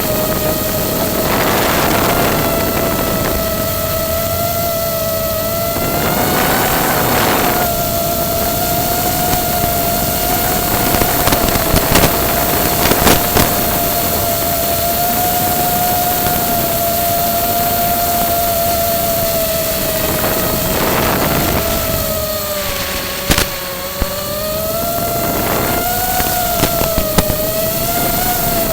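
FPV quadcopter's electric motors and propellers whining steadily, the pitch wavering slightly with throttle, with a few short rushing bursts of noise.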